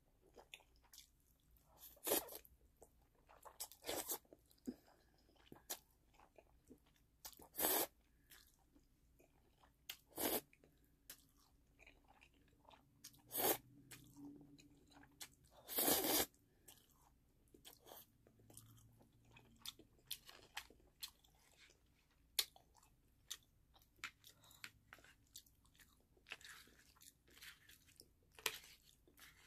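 A person eating black bean sauce noodles close to the microphone: short loud slurps of noodles every two or three seconds, the longest about halfway through, with soft chewing and mouth clicks in between.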